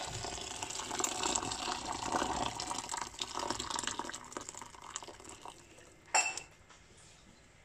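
Hot water from a kettle pouring in a steady stream into a pot of sautéed vegetables; the pouring fades out after about five seconds. A short knock follows about six seconds in.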